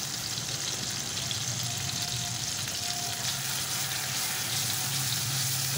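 Minced garlic sizzling steadily in hot mustard oil in a steel kadai, stirred with a wooden spatula: the garlic being fried briefly to take off its rawness before the tomatoes and spices go in.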